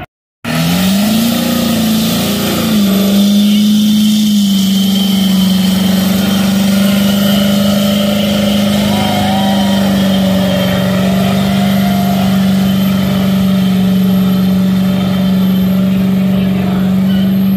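Old pickup truck's engine doing a burnout. It cuts in about half a second in, revs up and down briefly, then is held at steady high revs while the rear tyres spin.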